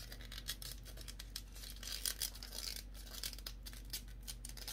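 Paper straw wrapper crinkling and tearing faintly as a straw is poked through it: a run of quick, soft paper crackles.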